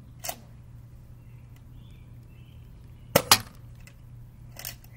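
Nerf Rival Mercury blaster in use for target shooting: sharp snaps of shots and foam balls striking. The loudest is a quick double snap about three seconds in, with softer single snaps just after the start and near the end.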